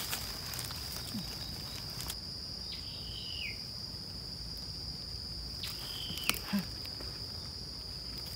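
Steady high-pitched insect drone. A short call, a held note that then falls, comes twice, about three and about six seconds in, over a few light clicks and rustles.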